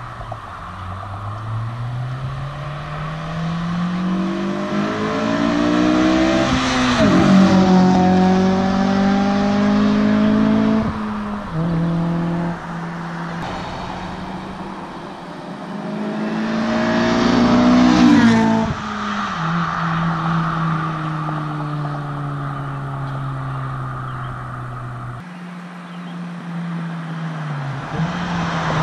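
Honda Civic Si's K20Z3 2.0-litre four-cylinder engine, breathing through a K&N short ram intake and Yonaka cat-back exhaust, pulling hard with its pitch climbing steadily twice to a loud peak, about 7 and 18 seconds in, then settling to a steadier drone; the pitch falls away near the end.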